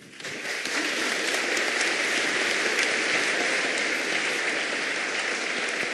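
An audience of many people applauding, the clapping swelling up within the first half second and then holding steady.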